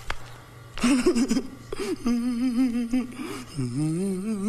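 A man's exaggerated vocal reaction: a sharp gasp about a second in, then a long, wavering, drawn-out cry that dips and rises again near the end.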